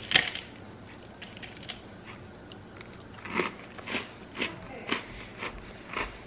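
A person chewing a cookie close to the microphone: a sharp crunch right at the start, then crisp chewing crunches about twice a second from about halfway through.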